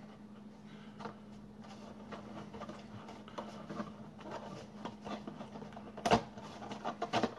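A papercraft model being handled by hand, its tabs tucked into slits: light paper rustling and scraping with small clicks, a sharp tap about six seconds in and another near the end, over a faint steady hum.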